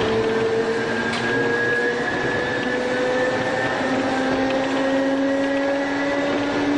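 Tobu 5700 series electric train's nose-suspended traction motors whining, the pitch rising steadily as the train accelerates, over the running noise of the wheels on the rails, heard from the front cab.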